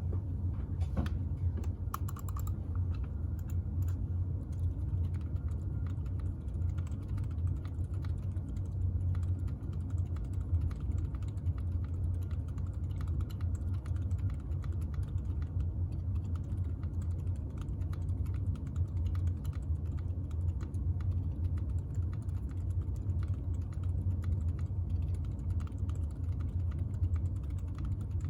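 Keychron Q1 aluminium mechanical keyboard with lubed Boba U4 linear switches and PBT keycaps, typed on in a fast, continuous stream of key clacks. A steady low HVAC hum runs underneath.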